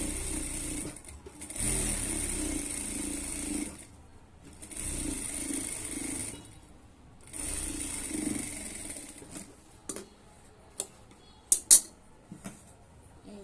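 Electric sewing machine stitching in four runs of about two seconds each, with short stops between them. Near the end come a few sharp clicks and knocks.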